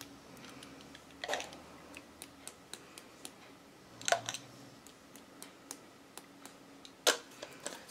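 Faint, irregular light clicks and taps from a small plastic dropper bottle handled over paper while water is splattered onto a painted sheet, with a few slightly louder taps about a second in, near the middle and near the end.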